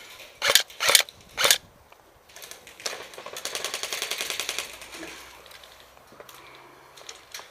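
Airsoft electric rifle firing: three short, loud bursts in the first second and a half, then a longer full-auto burst of rapid, even shots lasting about two seconds.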